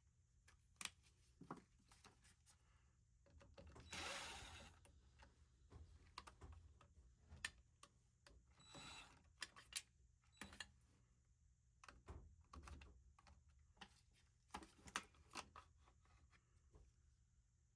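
Faint, irregular clicks and taps of hands and tools working parts loose on a washer during drain pump removal, with a short scraping rustle about four seconds in and another about nine seconds in.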